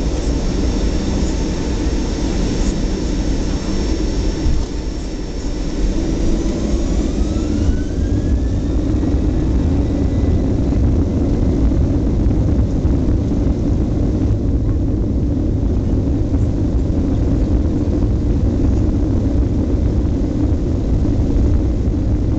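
Boeing 737-800's CFM56-7B turbofan engines heard from inside the cabin, spooling up for take-off. A whine rises in pitch about seven seconds in and then holds over a steady rumble at take-off power.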